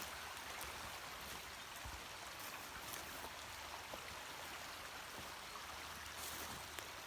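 Stream water running steadily, an even rushing hiss, with a few faint clicks over it.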